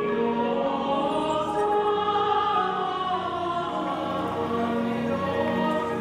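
Symphony orchestra with a chorus singing long held notes, the chords shifting every second or so.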